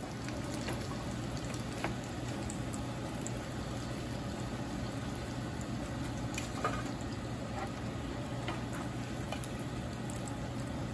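Corn-tortilla taquitos frying in shallow oil in a skillet, a steady sizzle. There are a few light clicks as the metal tongs and spatula touch the pan.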